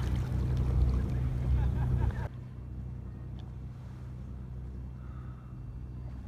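Boat engine running steadily with a low hum. About two seconds in the sound drops suddenly to a quieter, steady hum.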